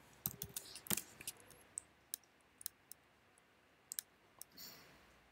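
Faint computer keyboard keystrokes: a quick run of key clicks in the first second, then single clicks about a second apart, with a brief soft hiss near the end.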